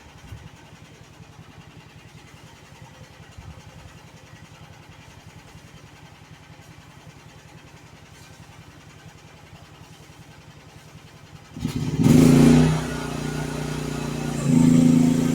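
Small engine of a YouTop YT15 mini excavator idling steadily, then revving up suddenly near the end and running loud, with two surges in level.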